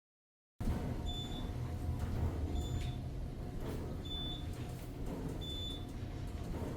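Traction elevator car travelling, heard from inside the cab: a steady low rumble starts about half a second in, with a short high-pitched beep about every second and a half.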